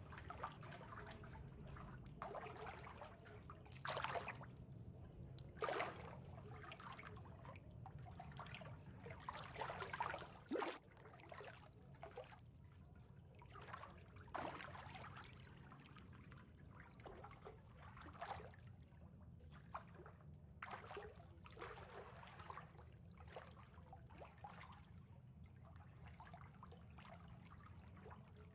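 Faint water trickling and lapping, with irregular small gurgling splashes, a few stronger ones in the first half, over a low steady hum.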